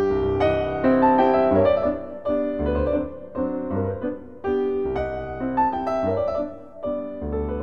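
Background piano music: a steady run of struck notes over lower bass notes.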